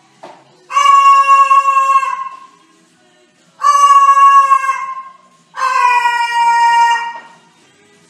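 White cockatoo giving three long, even-pitched calls with pauses between them, the last one dipping slightly in pitch.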